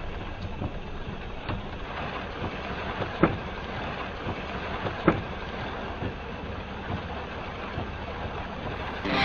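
Steady road and rain noise inside a moving vehicle in heavy rain, with scattered sharp knocks and ticks, the loudest about three and five seconds in.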